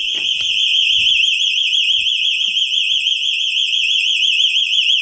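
Vivint home alarm siren sounding a loud, continuous, high-pitched warbling tone, its pitch wavering rapidly. It is an intrusion alarm set off by the opened basement window's sensor.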